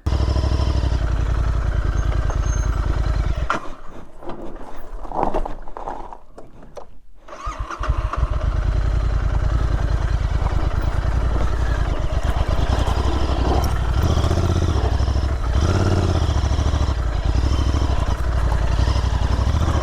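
Royal Enfield Interceptor 650's parallel-twin engine running with a steady low throb. It drops away for a few seconds and comes back strongly near 8 seconds.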